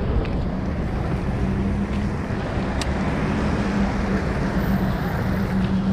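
Street traffic on a rain-wet road: a nearby vehicle engine running with a steady hum, over wind noise on the microphone. One sharp click about three seconds in.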